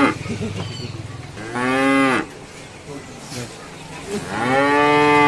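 Cow mooing: one drawn-out call about one and a half seconds in, and another starting about four seconds in, with a low rumble between the calls.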